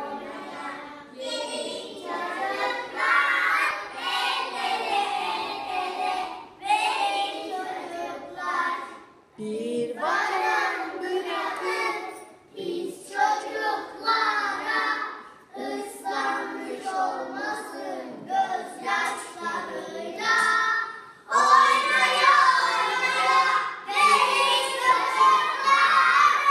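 A group of young children singing together in chorus, in phrases with short breaks, getting louder about two-thirds of the way through.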